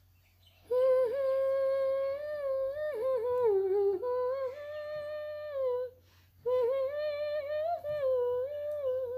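A high voice humming a slow melody of long held notes with gentle slides between them, starting about a second in, with a short break around six seconds in.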